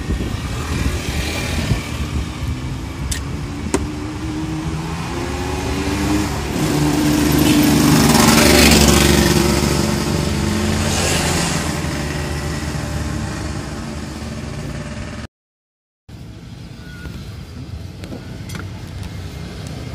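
Road traffic: a motor vehicle's engine passes, growing louder to a peak about eight seconds in and then fading away. The audio cuts out for under a second about fifteen seconds in.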